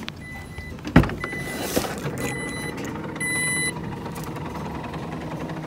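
A car's electronic warning beeps, a steady high tone sounding in about four short runs, with a thump about a second in and a low steady hum underneath.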